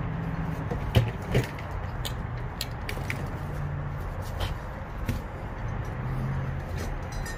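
A few sharp knocks and lighter clicks of objects being handled, the loudest two about a second in, over a steady low rumble.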